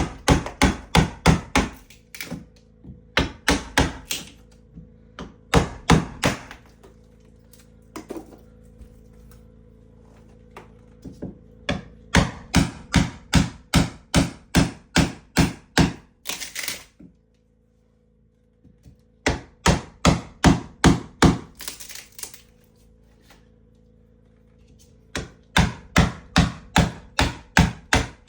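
Bursts of rapid knocking on wood, about five blows a second, in runs of a few seconds with short pauses between, over a faint steady hum.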